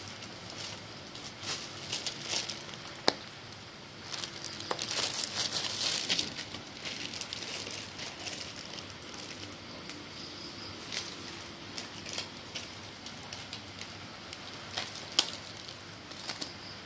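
Plastic-film-wrapped plastic food boxes being handled: crinkling of the film and sharp clicks of the boxes. The crinkling is densest about 5 s in, and the loudest clicks come about 3 s and 15 s in.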